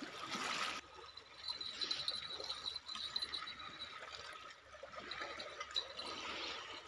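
Small waves lapping and trickling against a stony lakeshore, with a faint steady high whine for a couple of seconds about a second and a half in. The level drops suddenly under a second in.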